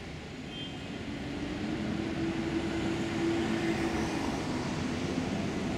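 Double-decker bus engine running as the bus approaches through a road junction, over general street traffic. The sound grows louder over the first couple of seconds, with a steady low engine hum.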